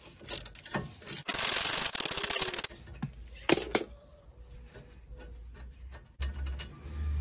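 Hand tools and metal parts working a brake caliper bracket bolt loose on a car's front brake: scattered clicks and scrapes, with a run of rapid clicking about a second and a half long near the middle.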